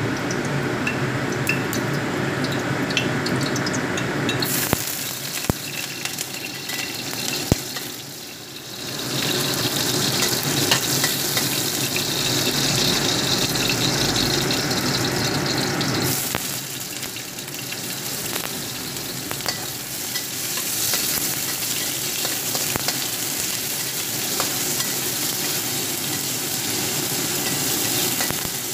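Hot oil sizzling in a steel wok as garlic and cubes of dry tofu fry, the sizzle swelling louder for several seconds partway through. A metal spatula clinks against the pan a few times as the pieces are stirred.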